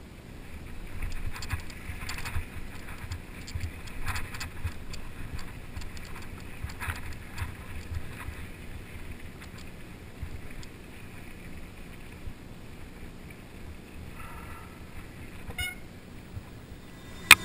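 Trek Fuel EX 8 mountain bike riding down a dirt singletrack, heard through a bike-mounted camera: a muffled rumble of tyres on the trail with many small clicks and rattles as it goes over bumps. Music cuts in abruptly at the very end.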